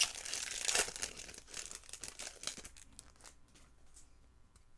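Foil wrapper of a Bowman's Best trading-card pack being torn open and crinkled in the hands. The crackling is loudest for the first couple of seconds and dies away to a few faint crinkles after about three seconds.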